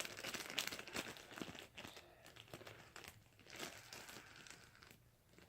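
Slime being squished and poked by hand: a faint, dense run of small crackling clicks and pops that thins out near the end.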